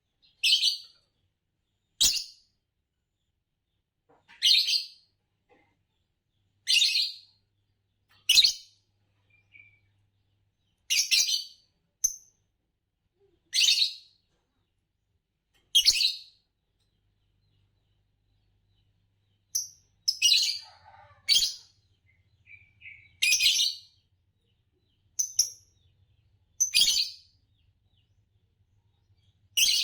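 Green Fischer's lovebirds giving short, sharp chirps one at a time, about one every two seconds. There is a pause of a few seconds midway.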